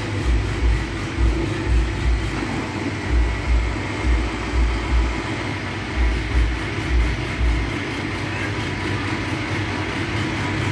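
Overhead crane travelling along its rails with a diesel engine hanging from the hook: a steady mechanical running noise with a regular low thump about twice a second from the wheels. The thumps stop about three-quarters of the way through, and the steady running noise carries on.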